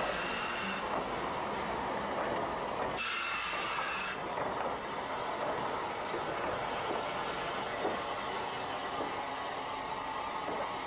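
Train running along the line: a steady rolling noise from the wheels and carriage, with a brief change in the hiss about three seconds in.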